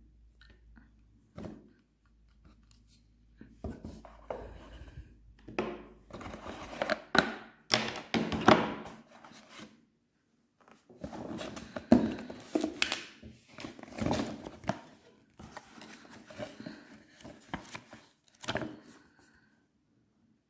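Packaging being handled and opened: irregular rustling, scraping and tearing with sharp knocks, in two busy stretches split by a short pause just before the middle.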